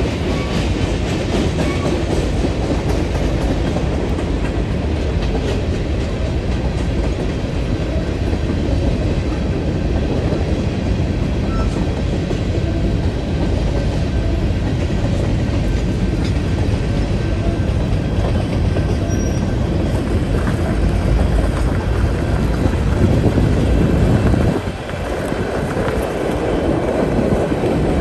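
Freight train of covered hopper cars rolling past, a steady loud run of wheels on rail that dips briefly near the end.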